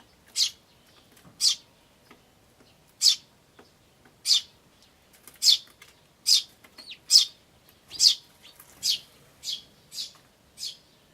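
Eurasian tree sparrows chirping: a steady series of short, high chirps, about one a second, coming faster in the second half.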